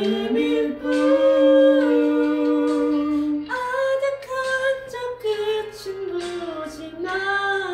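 Mixed vocal group singing in harmony, a woman's voice on top, with several voices holding long notes at once; the chord changes about three and a half seconds in.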